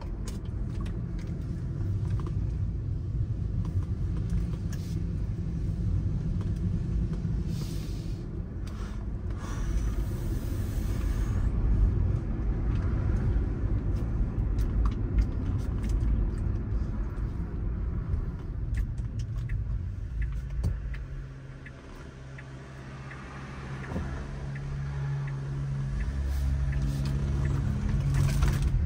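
Car driving slowly, heard from inside the cabin: a steady low rumble of engine and tyres. About three-quarters of the way through it quiets briefly, then a steady engine hum grows louder toward the end.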